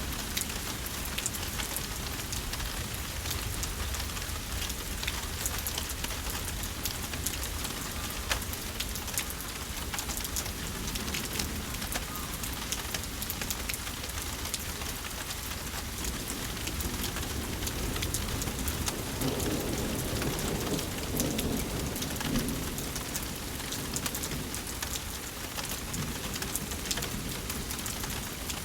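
Thunderstorm rain falling steadily, with individual drops ticking close by. A low roll of thunder rumbles up and fades about two-thirds of the way through.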